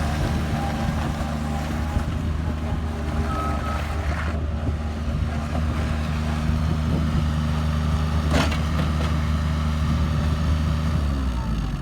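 Bobcat 463 mini skid steer's diesel engine running at a steady speed, then slowing as the throttle comes down near the end. There is one brief sharp sound about eight seconds in.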